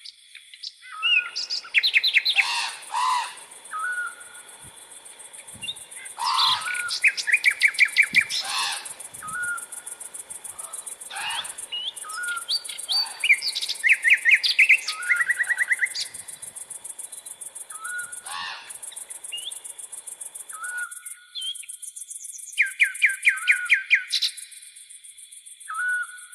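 Tropical forest birds calling: one bird repeats a short whistled note every couple of seconds, and another breaks in four times with loud bursts of rapid chirped trills. A steady high buzz of crickets runs underneath.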